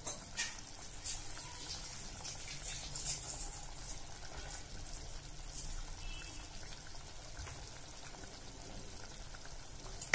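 Thin green chilli curry simmering in a pan, with a scatter of small bubbling pops and crackles. A ladle clinks against the pan at the very end.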